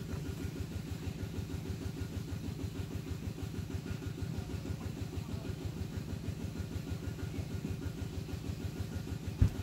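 An engine idling steadily with an even, rapid pulsing beat, and a single thump near the end.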